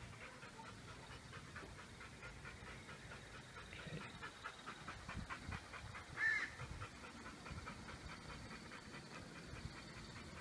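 A dog panting in a quick, even rhythm of faint breaths. About six seconds in, a short high chirp sounds once.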